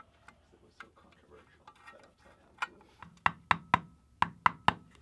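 Faint clicking of a hand ratchet, then about seven sharp metallic taps with a brief ringing tone, in quick groups of two or three. They come from a hammer striking a seal driver to seat the rear main seal in a Subaru EJ engine block.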